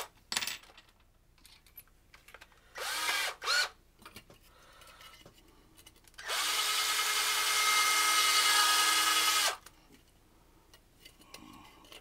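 Cordless drill spinning a bit against the aluminium rivet on a washing-machine control module: a few short trigger bursts that spin the motor up, then a steady run of about three seconds at an even pitch that stops suddenly. The repairer later finds the rivet was turning along with the bit instead of being cut.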